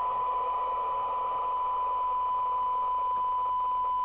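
Steady test tone from an SMC Oscar 1 CB radio's loudspeaker: the signal generator's modulation tone, received and demodulated during receiver alignment, with a light hiss around it.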